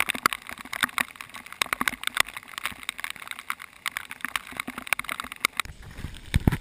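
Rapid, irregular sharp ticks and taps of rain striking the camera, with a short low rumble of wind or handling on the microphone about six seconds in.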